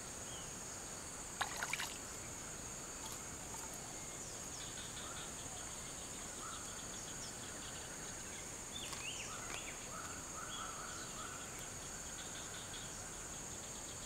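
Steady high-pitched insect buzz, with short chirps repeating in small runs from about five seconds in and a few brief knocks about one and a half seconds in.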